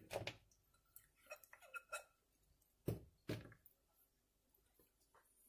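A few faint clinks and knocks from a glass bowl being handled beside a metal baking tray: a cluster of small ringing clinks, then two duller knocks about three seconds in.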